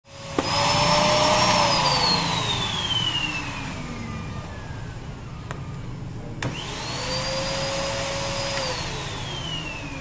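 SANYO canister vacuum cleaner's motor running, then winding down with its pitch falling over a few seconds. With a click it spins back up, runs steadily and winds down again near the end.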